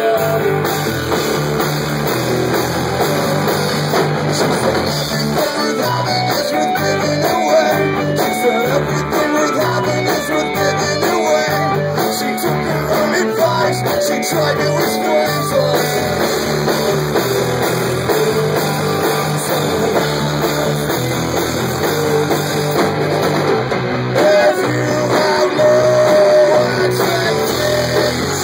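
Live rock band playing loudly, with electric guitar over a steady rhythm and a singer's voice through the microphone.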